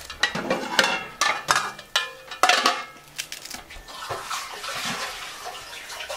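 Kitchen clatter: a quick run of sharp clicks and knocks, some with a short ring like dishes or cutlery, in the first three seconds, then a steady hiss of running water from a sink. Fresh parsley is being torn by hand into a plastic food-chopper bowl throughout.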